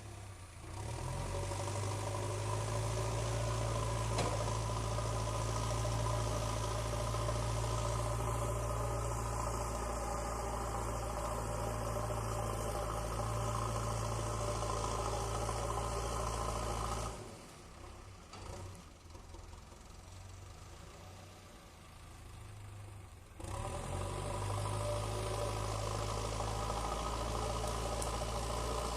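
Diesel engine of a JCB excavator running steadily. Its hum drops away for about six seconds past the middle, then comes back.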